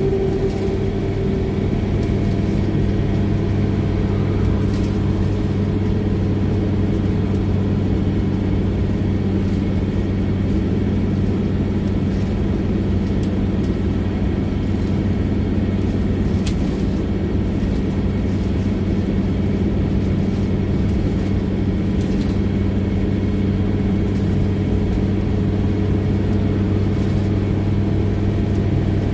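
Scania OmniLink single-deck bus running at a steady speed, heard from inside the passenger cabin: an even engine drone with road noise and a few faint clicks.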